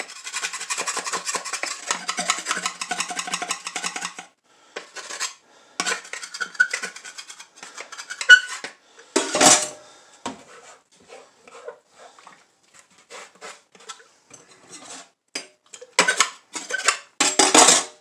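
The back of a metal knife blade scraping a plastic humidifier part in fast rasping strokes for about four seconds. After that come scattered knocks and clatters as the plastic parts are handled in a sink of soapy water, loudest near the end.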